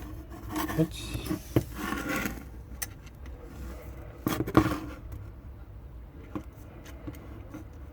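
Small plastic clicks, knocks and scraping as keyboard stabilizer parts are handled and fitted into the key board, with a louder cluster of knocks about four and a half seconds in.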